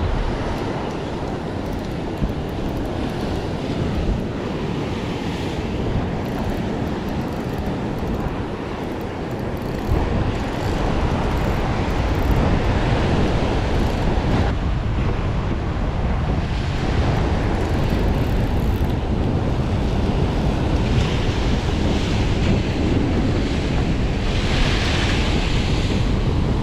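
Rough sea surf washing and breaking on a rocky lava shore, with wind buffeting the microphone. It gets louder from about ten seconds in.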